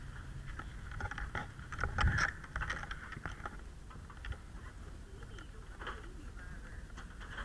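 Handling noise from a body-worn camera as its wearer moves: rubbing, clicks and knocks over a low rumble, with footsteps on a wooden porch. The loudest knock comes about two seconds in.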